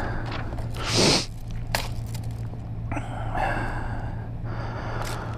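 A short, sharp breath close to the microphone about a second in, over a steady low hum, with a few faint clicks.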